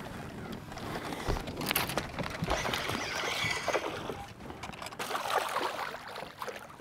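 Water splashing and sloshing beside a bass boat as a hooked bass thrashes at the surface during the fight, with a few sharp knocks and splashes standing out from the steady wash.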